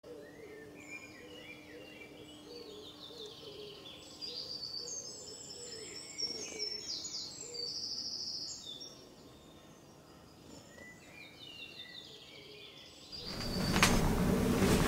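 Several birds chirping and trilling, short overlapping calls at a low level. About 13 seconds in this gives way to louder rustling and a few knocks as a person moves right up against the camera microphone.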